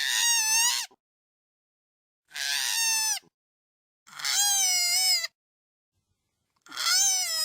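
Koala crying: four high, wavering wails, each about a second long, with silence between them.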